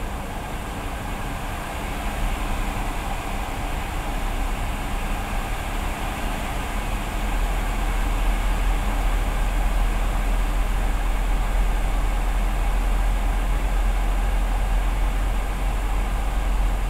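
Steady cabin noise of a Boeing 717 taxiing: the hum of its rear-mounted Rolls-Royce BR715 turbofan engines over a deep rumble, growing louder about seven seconds in.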